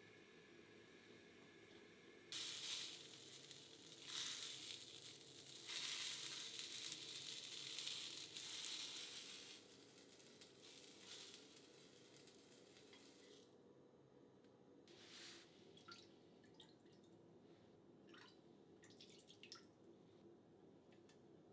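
Pieces of Japanese leek searing in a hot frying pan on a gas stove: a sizzle that starts abruptly a couple of seconds in, swells in waves and dies away over the next ten seconds. Then come scattered light clicks and taps of chopsticks and cookware.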